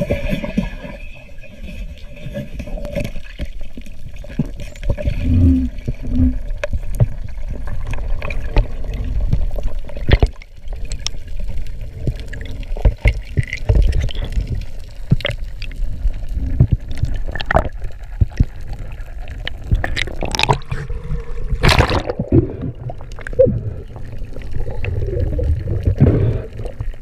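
Underwater sound picked up by a camera in its housing while a diver swims: a continuous low rumble and gurgle of water moving past the housing, with scattered sharp clicks and knocks.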